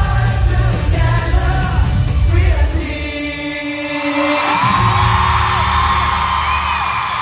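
A live boy-band pop song sung over a heavy beat, played loud through the concert PA. About three seconds in the beat drops away under a held note. Then the audience breaks into high screams and whoops while the music carries on.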